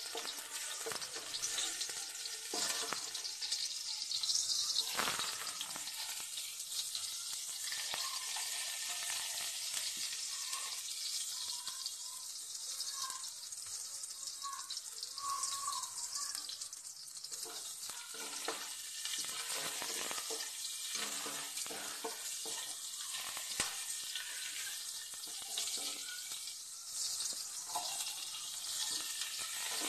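Garlic and ginger sizzling steadily in hot oil in a wok, stirred with a wooden spatula that scrapes and knocks against the pan again and again.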